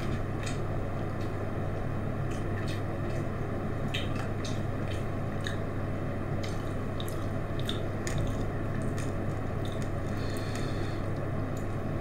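Close-up eating sounds of someone chewing rolled-egg skewers in sauce: wet, squishy chewing with scattered small mouth clicks and smacks, over a steady low hum.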